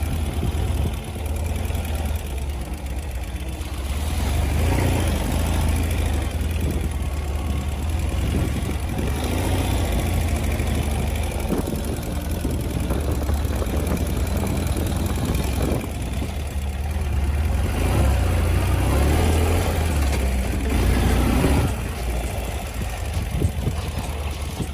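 Ural sidecar motorcycle's flat-twin engine running under way, its note swelling louder several times as the throttle is opened and eased.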